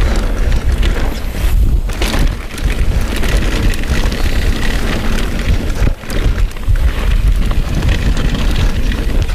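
Wind buffeting a chest-mounted action camera's microphone as a mountain bike descends a dirt trail at speed, mixed with the rush of tyres on dirt and the bike rattling over bumps. There is a brief lull about six seconds in.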